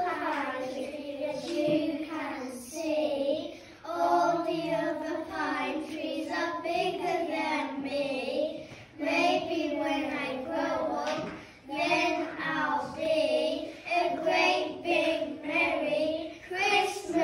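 A small group of young children singing a song together, line after line with short breaks between phrases.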